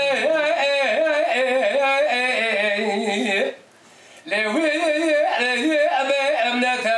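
Kurdish dengbêj singing: one unaccompanied male voice in long, wavering, ornamented lines, with a short break for breath about halfway through.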